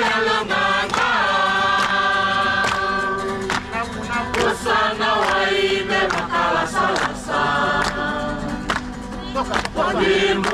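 A group of Fijian men and women singing a welcome song together in harmony, with hand-clapping and a strummed acoustic guitar.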